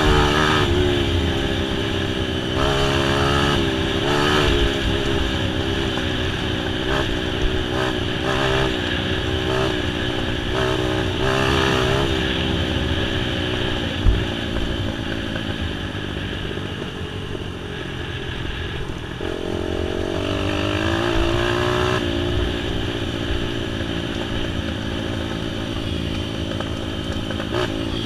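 Motorcycle engine running under way, its pitch climbing and dropping several times as the throttle is worked and gears change, easing off in the middle and rising again near the end of the ride segment. A single sharp knock sounds about fourteen seconds in.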